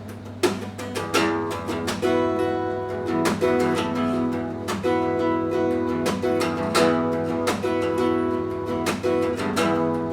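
Guitar playing an instrumental break of strummed chords in an even rhythm, with no singing. A faint steady low hum runs underneath.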